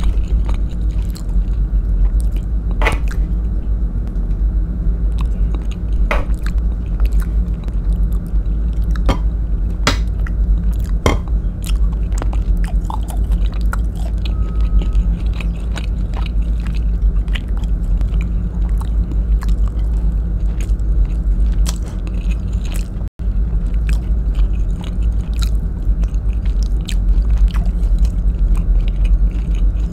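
Close-miked chewing of tender stewed beef in coconut sauce, with wet mouth clicks and smacks coming every second or so, over a steady low rumble. The sound cuts out for an instant about three-quarters of the way through.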